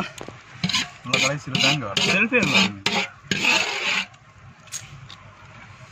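Rough scraping and rubbing as food is tipped and scraped out of a large blackened cooking pot onto a banana leaf, in short rasping bursts over the first four seconds.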